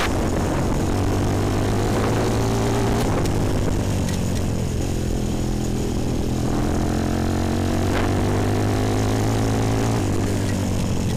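Bashan 250 quad's engine running at steady riding speed, its note easing off about four seconds in and then holding steady.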